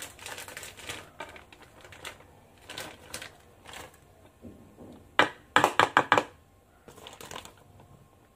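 Flour packet crinkling and crackling as it is handled and opened over a metal mixing bowl, with a quick run of sharp, loud crackles about five to six seconds in.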